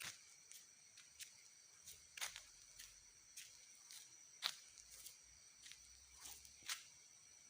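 Faint night insects chirring steadily in a high thin tone, with irregular sharp clicks and crackles scattered through it, the loudest about halfway.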